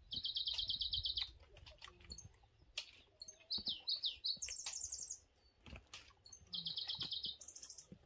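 Small songbirds singing: four rapid trills of evenly spaced high notes, each about a second long, two pitched lower and two higher, with a few short chirps in between.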